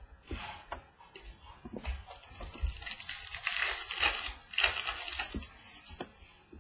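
Baseball trading cards being handled and slid across one another: soft scraping and light flicking, busiest in the middle few seconds.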